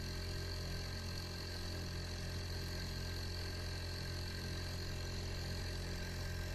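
Small boat's motor running steadily under way, a constant low hum.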